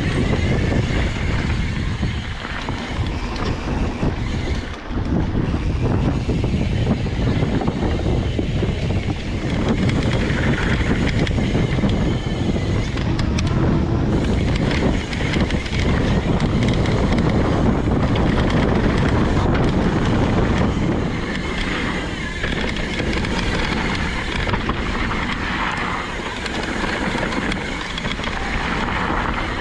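Wind rushing over the microphone with the steady rattle and tyre noise of an Evil Insurgent MX mountain bike riding down a rough trail.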